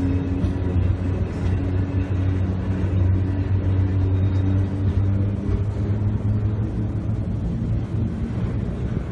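Heritage electric tram running, heard on board: a steady rumble with a low motor hum whose pitch shifts slightly.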